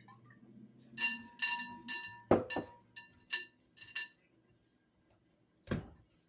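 Kitchen bowl and utensils clinking: about ten quick ringing clinks over three seconds, with two heavier knocks among them, then a single dull thump near the end.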